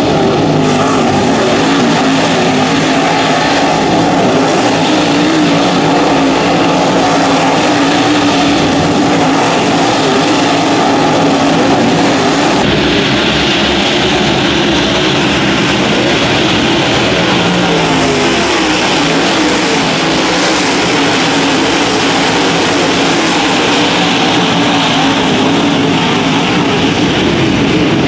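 Pack of dirt late model race cars' V8 engines running hard around a dirt oval: a steady, loud engine din whose pitch wavers as cars pass. The sound shifts abruptly about halfway through.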